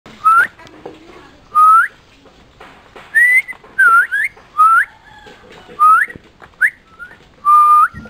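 Common myna giving a series of loud, clear whistles, about nine of them, each held briefly and then sweeping upward at its end.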